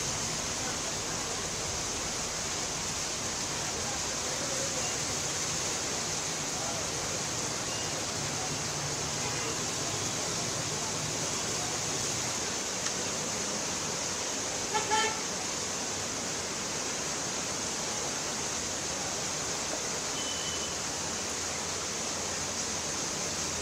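Steady hiss of heavy rain and water on a flooded street, with a vehicle horn giving a short honk about fifteen seconds in.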